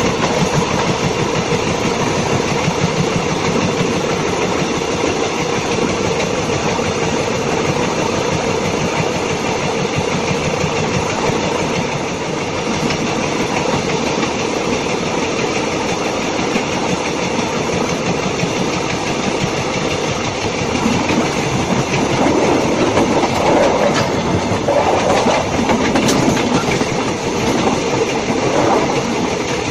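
Steel wheels of a railway wagon rolling along the rails, heard close up from under the wagon beside the wheelset: a steady loud rolling rattle, growing somewhat louder and rougher over the last several seconds.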